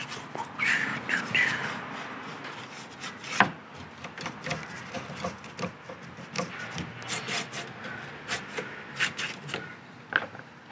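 A paintbrush scrubbing and dabbing paint onto a wooden surface in short, irregular strokes, with one sharp knock about three and a half seconds in.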